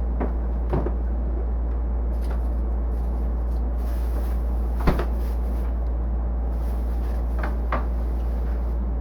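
A few sharp knocks of kitchen work, cupboard doors or utensils being set down, the loudest about five seconds in and two close together near the end, over a steady low hum.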